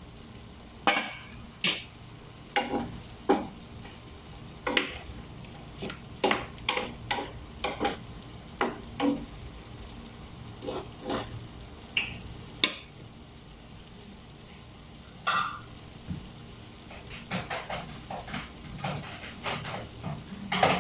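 Beef and broccoli being stirred in a frying pan: a utensil scrapes and clinks against the pan in irregular strokes, with pauses, over a low sizzle of the food frying.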